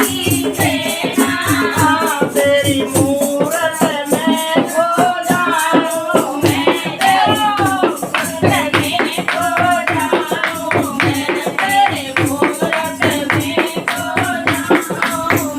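A Hindi devotional bhajan sung by a woman, with a fast, steady beat of shaken, rattle-like percussion behind the voice.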